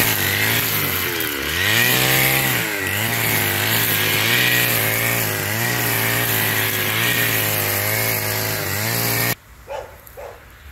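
Stihl FS550 two-stroke brushcutter running at high revs, its trimmer line thrashing through dense grass and brambles; the engine note sags and recovers several times as the line meets heavier growth. The sound cuts off abruptly about nine seconds in, leaving a few faint short sounds.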